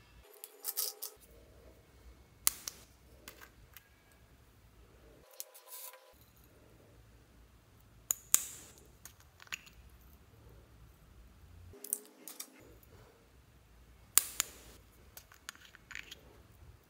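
Small plastic glitter jars being handled, opened and emptied, making sharp plastic clicks and taps every couple of seconds.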